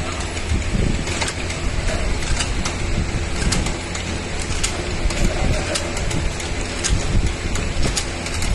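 Cough syrup bottle filling machine running: a steady mechanical rumble with frequent, irregular sharp clicks.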